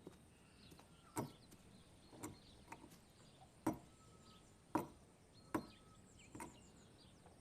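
Sharp knocks, about seven in all and roughly a second apart, of a hard tool striking: pearls being pounded down into pearl powder.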